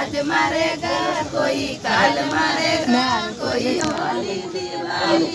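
A group of women singing gaali, the traditional mock-abuse wedding songs aimed at the other side's in-laws, which are sung as a ritual and not meant as real insults.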